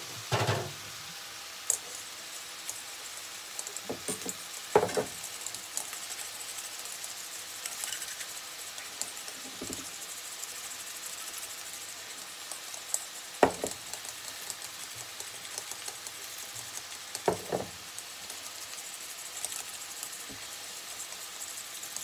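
Metal spoon clinking and scraping in a stainless steel mixing bowl while seasonings and olive oil are stirred together, with a few sharp knocks as the spoon and bottles hit the bowl or counter, over a steady faint hiss.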